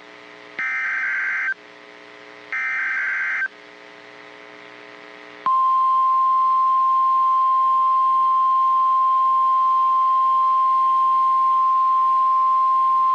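NOAA Weather Radio emergency alert: the last two of three SAME digital header bursts, each a buzzing data screech about a second long with a short pause between. About five and a half seconds in, the steady single-pitch Weather Radio warning alarm tone starts and holds, the signal that a warning is being broadcast.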